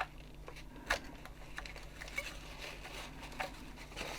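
Kitchen paper towel being rubbed and pressed into a plastic toy's battery compartment: faint scuffing with light clicks. The sharpest clicks come at the start and about a second in, over a low steady hum.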